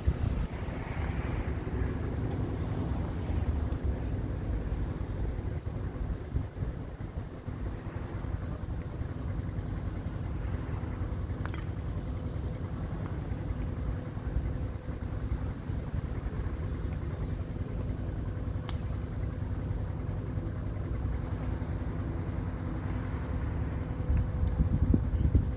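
Strong wind buffeting the camera's microphone: a steady low rumble, with a faint hum underneath.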